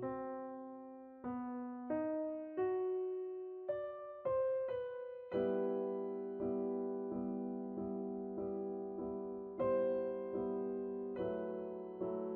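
Soft piano music: a slow melody of single struck notes, then repeated chords from about five seconds in.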